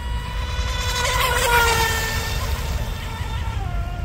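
Electric RC mono-hull speedboat at full speed: a high-pitched motor and propeller whine with a hiss of water spray. It grows louder and sags slightly in pitch as the boat passes about a second and a half in. Near the end the whine drops in pitch briefly, then rises again.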